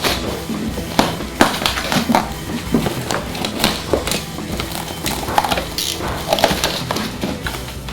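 A wrapped cardboard parcel being cut and pulled open by hand: irregular crinkling, scraping and small knocks.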